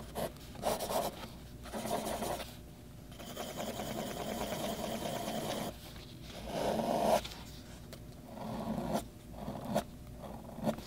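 A fountain pen's flexible italic nib scratching across paper in short writing strokes, with a longer run of quick repeated strokes from about three to six seconds in.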